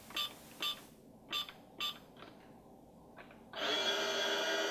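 Toy microwave beeping as it is switched on, a series of short electronic beeps, then about three-quarters of the way through its steady electronic running hum starts up.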